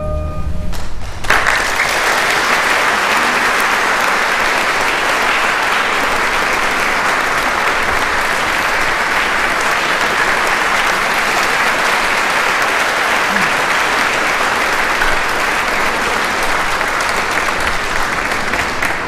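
The final chord of an electronic organ breaks off at the very start, and about a second later a large audience applauds steadily.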